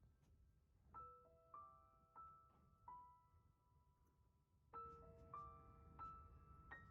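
Soft background music: a piano or keyboard playing slow single notes, each struck and left to ring out, in two short runs of a few notes.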